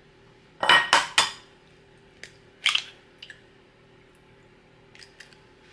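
A raw egg being knocked against a white ceramic bowl and cracked open: three sharp quick knocks close together, another knock about a second and a half later, then a few faint ticks as the shell is pulled apart.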